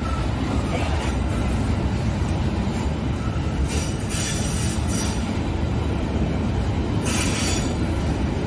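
Tank wagons of a long freight train rolling past at close range: a steady low rumble of steel wheels on the rails. Brief high screeches from the wheels come about four seconds in and again near seven seconds.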